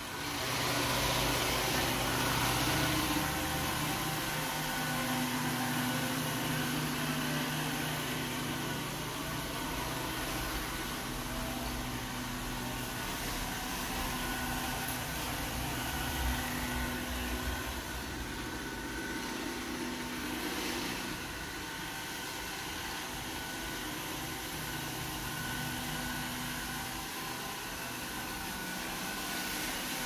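iRobot Roomba s9+ robot vacuum running as it drives across a wood floor: a steady motor whir with a faint hum, louder for the first few seconds and then even.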